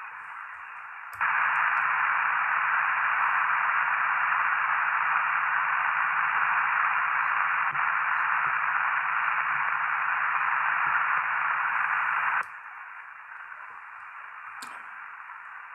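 Static hiss from the Icom IC-R71E receiver's speaker with no station tuned in. About a second in the hiss jumps much louder with a faint low hum under it, and it drops back to a quieter hiss about twelve seconds in, a click marking each change.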